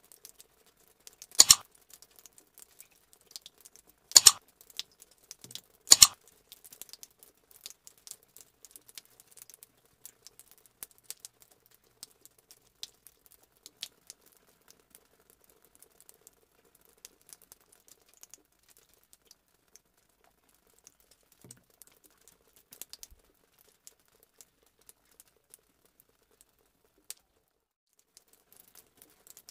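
Three sharp mouse-click sound effects about two seconds apart, from the animated like-and-subscribe button, followed by faint scattered ticking and crinkling.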